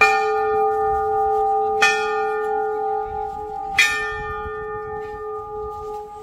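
Large brass temple bell struck three times, about two seconds apart. Each strike rings on over the last, and the ringing slowly fades.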